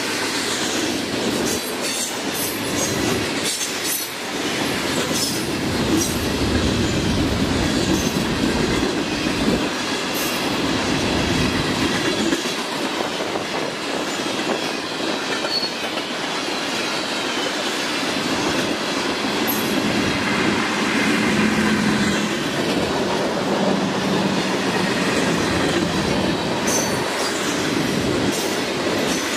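Florida East Coast Railway freight train rolling past, its cars' wheels clacking over rail joints, with a faint, on-and-off wheel squeal.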